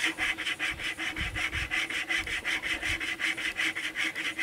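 Wire cable saw strung on a bent green-stick bow and tensioned by a spring, sawing through a log in quick, even back-and-forth strokes.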